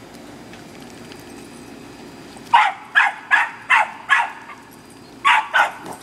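A dog barking: a quick run of five barks starting about two and a half seconds in, then a pause and two more barks near the end.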